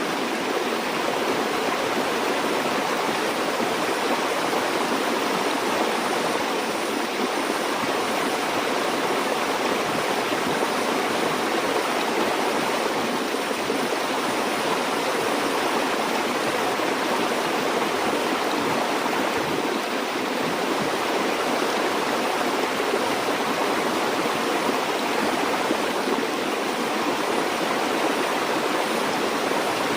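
River or stream water flowing steadily over rocks, a continuous even rush of running water.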